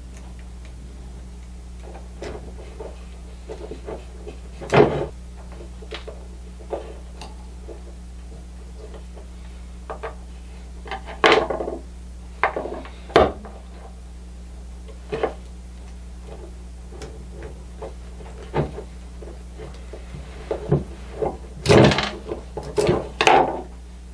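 Irregular clicks, knocks and light scrapes of hand work on an old Craftsman router's motor brush holder, as a stuck carbon brush and its spring are worked loose. A few sharper knocks stand out, about five seconds in, around eleven to thirteen seconds, and near the end.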